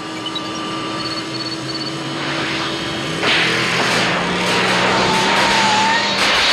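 Movie sound effect of the DeLorean car accelerating hard toward 88 miles an hour: a rising rush of engine and road noise that turns loud about three seconds in, with a wavering whine near the end.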